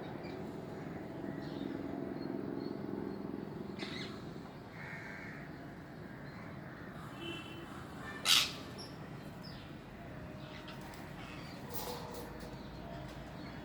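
Birds calling: scattered harsh calls over a steady low background hum, with one loud, sharp call about eight seconds in.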